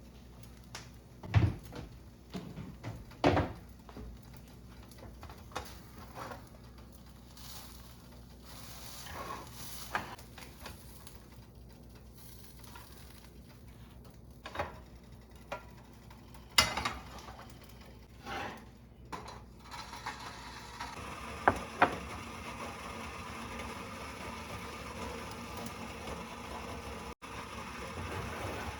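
Kitchen preparation sounds: scattered knocks and clinks of utensils, bowls and dishes, a dozen or so separate strikes. About two-thirds of the way through, a steady hiss rises under them.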